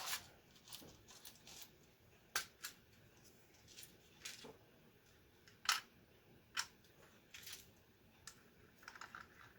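Scattered light plastic clicks and taps from Commodore 64 keyboard parts being handled and fitted during reassembly, a few sharp clicks a second or so apart with quiet between them.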